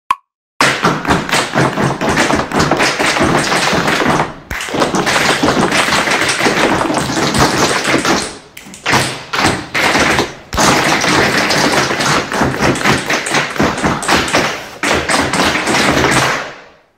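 Tap shoes of several dancers striking a fast, dense rhythm on hard floors, with no music, broken by a few short pauses and fading out at the end.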